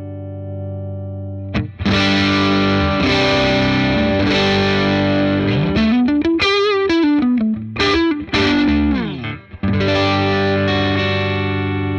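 Electric guitar played with overdrive through a Dr. Z Maz 38 Senior Reverb 2x12 tube combo amp. A held chord rings, then strummed chords come in about a second and a half in. A bent single-note lick follows in the middle, and a chord struck near the end is left to ring.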